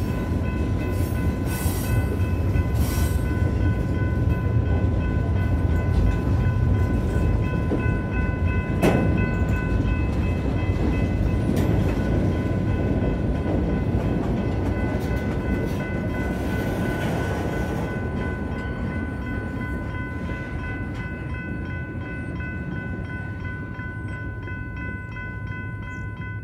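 Freight cars rolling through a grade crossing, with a steady rumble and wheel clatter and one sharp clank about a third of the way in. The rumble fades over the last several seconds as the end of the train passes. Throughout, the crossing signals' GS Type 3 electronic bells keep ringing.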